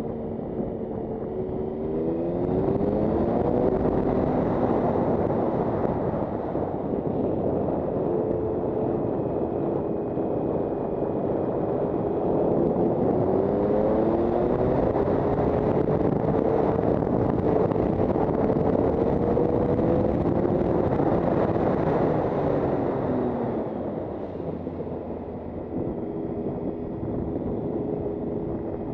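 Triumph Sprint ST 1050's three-cylinder engine heard from the rider's seat, revs rising about two seconds in and again midway as it pulls out of the bends, then falling away near the end as it slows for the next turn. A strong wind rush swells with the speed and drops back as the bike slows.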